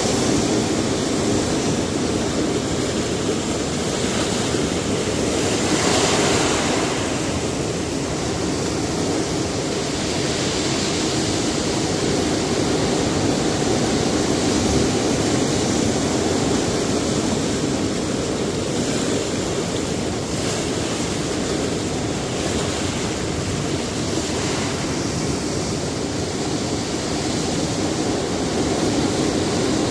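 Sea surf breaking on a rocky shore: a continuous wash of water noise with waves swelling and subsiding, one louder break about six seconds in.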